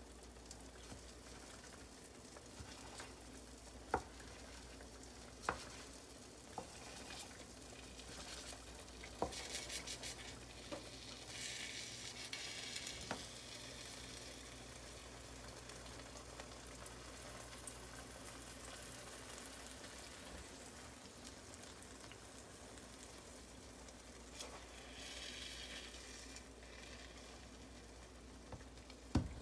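Egg pancake with onion and bell pepper sizzling in a nonstick frying pan, with a wooden spatula now and then tapping and scraping against the pan. The sizzle swells for a few seconds around ten seconds in and again near the end.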